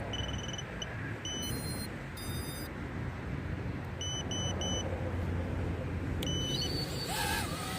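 Electronic beeps from the brushless micro quadcopter as its battery is connected: short high beeps, including a quick run of three about four seconds in, and two longer multi-tone chirps near two seconds in, over a steady low rumble.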